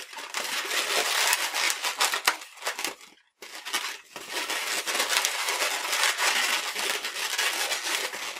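Inflated green latex twisting balloon being twisted and handled, its bubbles rubbing against each other and the fingers in a dense, scratchy rustle that stops briefly about three seconds in.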